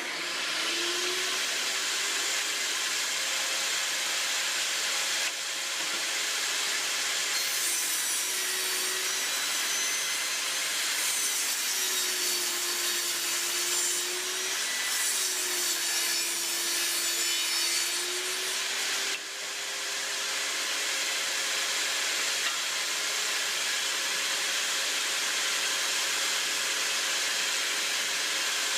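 A table saw runs steadily while cedar 2x4 boards are fed through it to cut a notch along their edges. The saw's tone sags in pitch three times in the middle as the blade takes the cuts.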